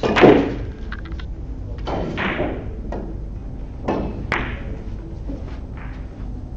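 Three dull thumps about two seconds apart, the first, right at the start, the loudest, over a steady low hum.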